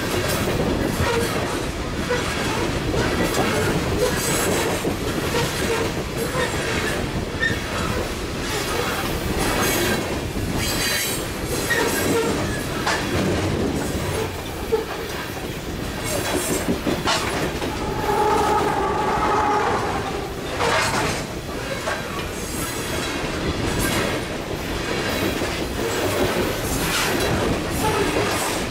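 Cars of a Canadian Pacific coal train rolling steadily past close by: the steady rumble of steel wheels on rail with repeated clanks at the rail joints, and a brief wheel squeal about two-thirds of the way through.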